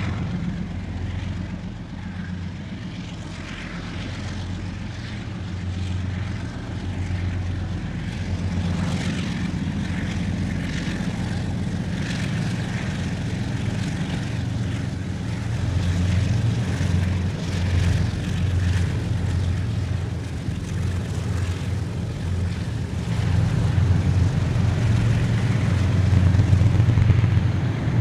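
Diesel locomotives of a freight train running under power: a steady, deep engine drone with a faint hiss above it, a little louder in the last few seconds.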